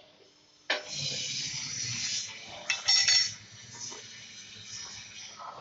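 Lathe cutting tool scraping across a large steel pipe: a harsh, high hissing scrape begins abruptly about a second in, swells sharply about halfway through, then carries on more quietly.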